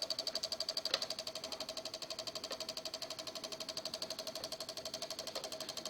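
Relays of a Microsol voltage stabilizer chattering under load in a fast, even run of clicks, with a slightly stronger click about a second in. The relays keep switching because the output voltage is hunting, a fault traced to a bad relay and a swollen capacitor.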